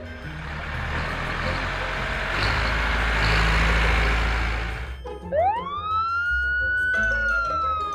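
A steady rushing noise for about five seconds, then a siren wail that rises sharply, holds, and slowly falls, over background music.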